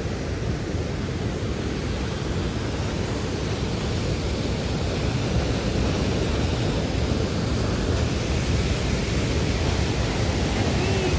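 Steady roar of Niagara Falls' falling water, an even rushing noise that grows slightly louder.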